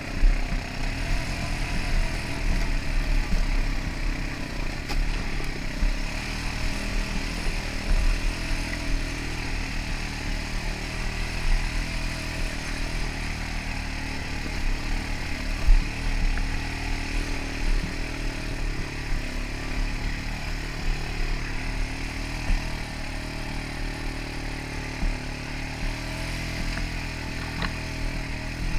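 Quad ATV engine running steadily as the four-wheeler is ridden along a rough dirt trail, with occasional thumps from the bumps, heard from a helmet-mounted camera.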